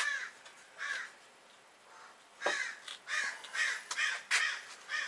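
Crow cawing: two harsh caws, then after a short pause a quicker run of about six caws.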